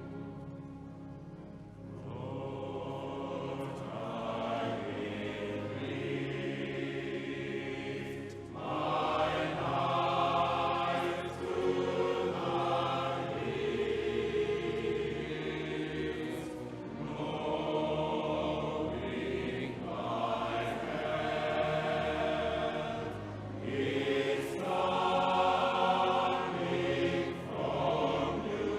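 Choir singing in sustained phrases, soft at first and growing louder about eight seconds in.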